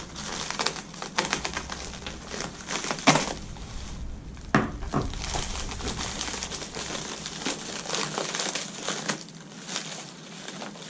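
Plastic Priority Mail mailer being slit with a folding knife and pulled open by hand: steady crinkling and rustling of the plastic, with a few sharper snaps, the loudest about three seconds in.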